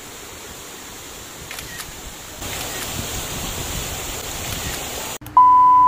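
Steady rushing of a tall waterfall, which grows louder about two and a half seconds in. Near the end a loud, steady electronic beep lasts about half a second and cuts off suddenly.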